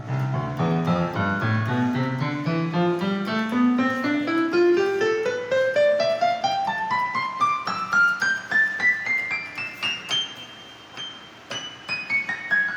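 Casio WK-3000 workstation keyboard playing a piano tone: a long run of notes climbing steadily from the low end to the high end over about ten seconds, then a few scattered high notes, with the run starting to come back down near the end.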